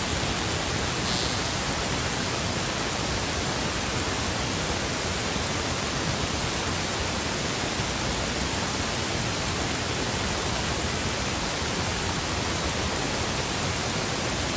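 A loud, steady, even hiss like static, with no other sound heard over it.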